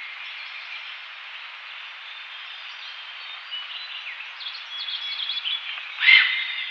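Himalayan goral giving one short, loud call about six seconds in, over a steady hiss of background noise with faint bird chirps in the middle.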